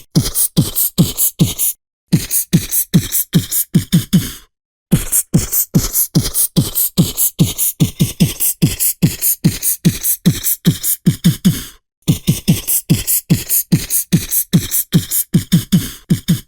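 Beatboxing: a fast, steady run of mouth-made drum hits, each with a low thud, broken by three short pauses between phrases.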